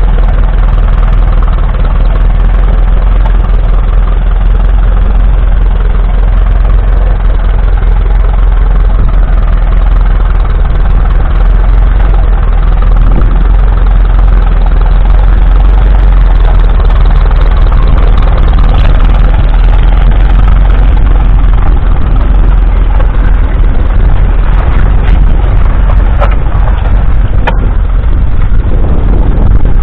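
1951 Ferguson TED20's 2.1-litre four-cylinder TVO engine running steadily and loud, heavy in the low end.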